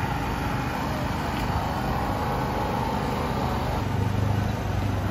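A small engine running steadily, a low hum that grows louder about four seconds in, over general outdoor street noise.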